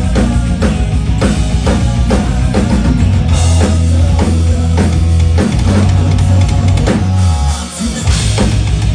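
Rock band playing loud: a drum kit keeps a steady beat over a sustained bass line. The band drops back briefly about three-quarters of the way through, then comes back in.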